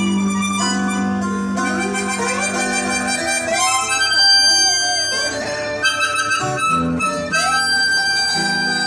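Harmonica solo played into a vocal microphone, long held notes with some notes sliding up and back down, over two acoustic guitars.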